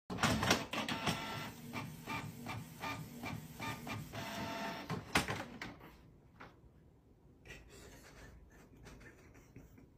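Canon PIXMA G3610 inkjet printer printing a page: the print head and paper feed whir and clack in repeated strokes, two or three a second, for about five seconds, then go quieter with a few scattered clicks.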